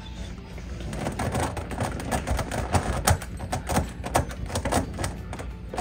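Plastic twisty puzzle being turned quickly by hand: its layers click and clack in rapid, irregular runs of turns.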